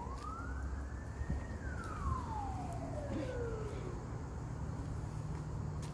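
A siren wailing: one slow rise in pitch during the first second and a half, then a long slide back down over the next two and a half seconds, over a steady low hum.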